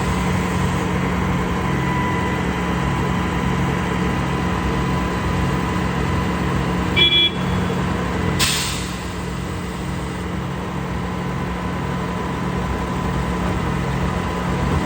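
Concrete pump truck's diesel engine running steadily with a rhythmic low pulsing, with a short high beep about seven seconds in and a brief burst of hiss about a second later.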